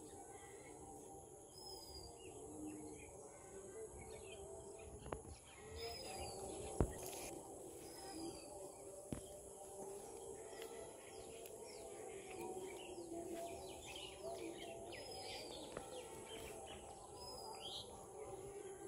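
Outdoor pond-side ambience: birds give short chirps and calls again and again over a steady high-pitched hum, with one sharp click about seven seconds in.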